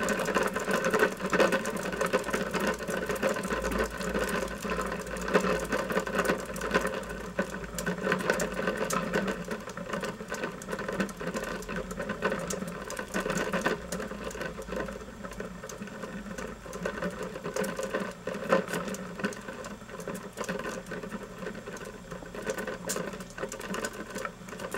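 Roller bearings of two magnet-carrying HDPE disks spinning side by side, rattling and whirring continuously and very noisy, as if the rollers were cubic in shape, with the disks set only a millimetre or two apart. The noise slowly gets quieter as the disks coast.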